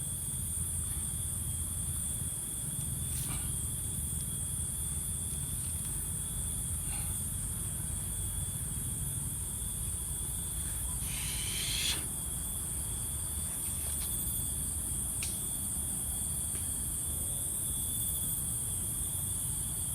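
A steady, high-pitched chorus of insects with a constant shrill tone underneath. There is a brief rustle about eleven seconds in and a few faint clicks.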